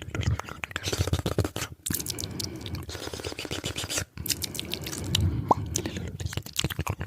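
Fast, wet ASMR mouth sounds close to the microphone: rapid clicks, pops and smacking with a couple of brief pauses and a short squeak about five and a half seconds in.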